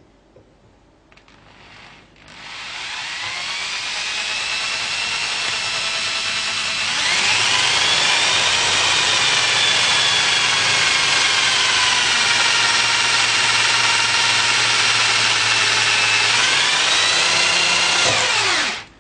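Electric drill with a 3 mm bit drilling out a pin chamber in a lock cylinder held in a vise. It starts about two seconds in, runs up to a higher, steady whine around seven seconds, wavers in pitch near the end and stops suddenly.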